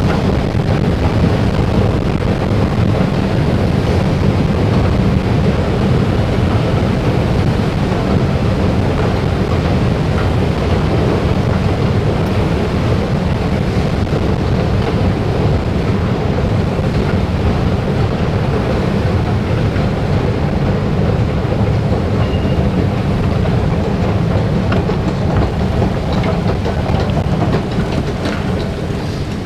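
Steady low rumble and hum of a running escalator, easing off a little near the end.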